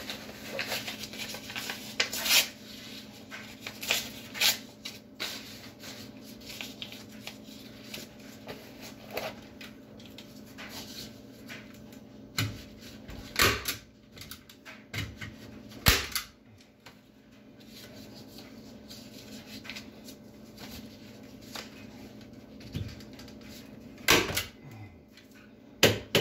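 Hand staple gun firing staples through plastic sheeting into the wooden ceiling framing: about half a dozen sharp clacks, irregularly spaced, with smaller clicks and handling noise in between.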